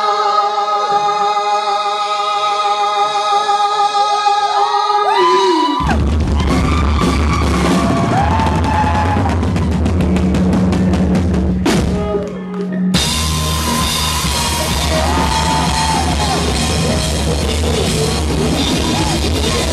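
Live rock band, heard loud and somewhat distorted from right at the front of the stage. A long held sung note comes first; about six seconds in, the full band comes in with heavy drums and bass. The band cuts out briefly around twelve seconds and then comes back in.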